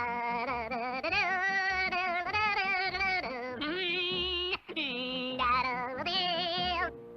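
Cartoon soundtrack: a high, wavering sung melody with heavy vibrato, held in long phrases, with a brief break a little past the middle.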